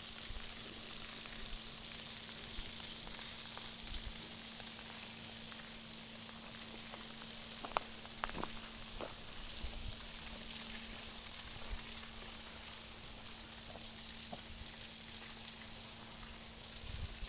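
Waterfall: a steady hiss of falling water. A few sharp clicks come about eight seconds in.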